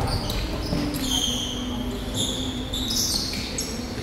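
Volleyball rally on an indoor gym court: a ball strike at the very start, then several short, high squeaks of sneakers on the court floor, over a steady low hum.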